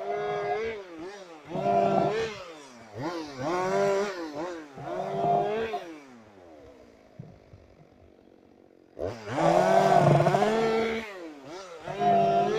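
Two-stroke chainsaw revved in short bursts, its pitch climbing and dropping about once a second. About six seconds in it falls quiet for some three seconds, then opens up to a loud full-throttle burst of about two seconds before revving in short bursts again.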